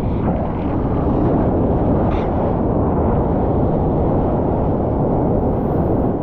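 Wind buffeting the microphone: a steady, loud rumbling noise.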